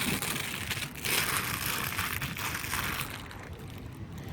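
Cardboard Funko Pop mystery box being torn open and its packaging crumpled: a dry crunching and crinkling that is strongest in the first three seconds and then fades.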